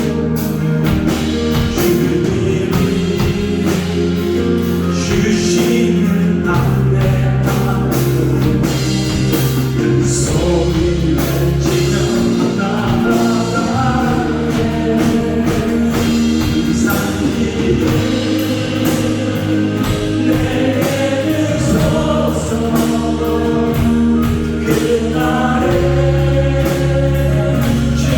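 A church praise band and singers performing a contemporary worship song, with sustained bass and chords under the voices and drums keeping a steady beat.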